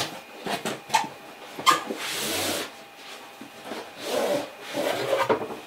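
A cardboard box being opened and handled by hand: a few sharp taps and clicks, then cardboard scraping and rubbing as the flap is pulled back and the contents slide against it.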